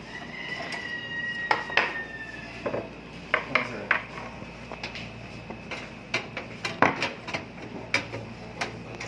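Irregular light metallic clicks and clinks of tools, screws and a desktop computer's sheet-metal case as the LAN expansion card is unscrewed and pulled out.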